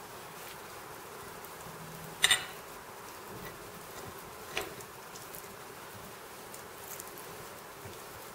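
Hands handling a raw chicken wing section on a cutting board, over a steady hiss. There is a sharp click about two seconds in and a softer one about two seconds later.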